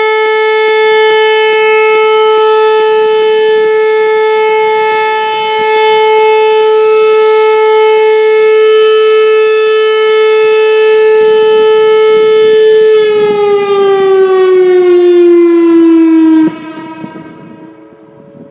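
Whelen 4004 electronic outdoor warning siren sounding a steady test tone, rich in overtones. About thirteen seconds in the pitch slides steadily downward for a few seconds, then the tone cuts off abruptly, leaving a much fainter tone lingering.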